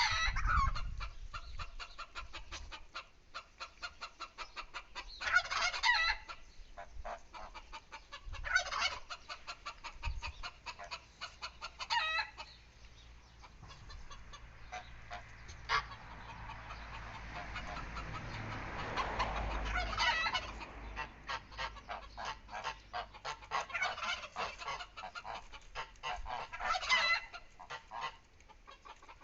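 Chickens clucking with rapid short calls, broken every few seconds by a louder, longer bird call. About two-thirds of the way through, a rushing noise swells and then fades.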